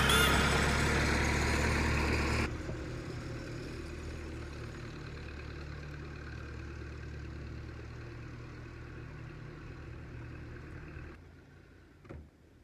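Background music that cuts off about two seconds in, then an engine idling steadily at a low pitch. The engine sound drops away near the end, followed by a single knock.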